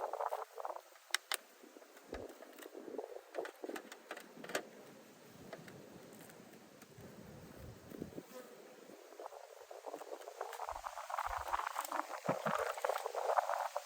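A mass of honeybees buzzing in an opened bee package, louder over the last few seconds, with scattered clicks and taps from handling the box.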